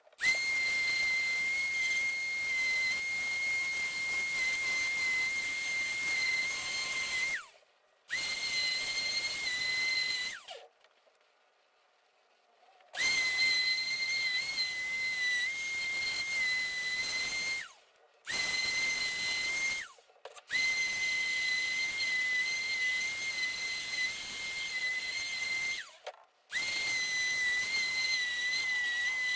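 Power sander running in stretches of a few seconds, a steady high whine over a hiss, stopping and starting again about five times, with a longer pause a third of the way in. It is sanding cured fiberglass filler smooth on a dashboard.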